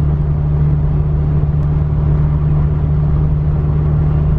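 2017 Subaru WRX's turbocharged 2.0-litre flat-four with an Invidia R400 exhaust, cruising at a steady speed: an even low engine drone with tyre and road noise, heard from inside the cabin.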